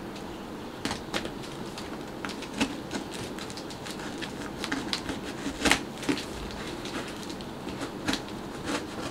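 Hands working at the taped top of a cardboard shipping box, opening it: irregular scrapes, taps and crackles of tape and cardboard, with one sharper snap a little past halfway.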